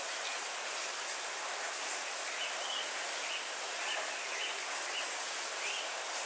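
Steady heavy rain falling, with a bird giving short repeated chirps from about two seconds in.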